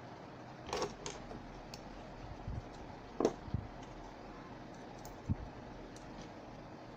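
Scattered light clicks and taps of a hard drive and its circuit board being handled during a board swap, over a steady faint hiss.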